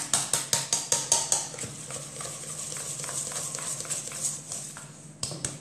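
Hand whisk beating egg into thick choux paste in a bowl: rhythmic sharp strokes about four or five a second, blurring into faster, steadier beating for a few seconds before distinct strokes return near the end.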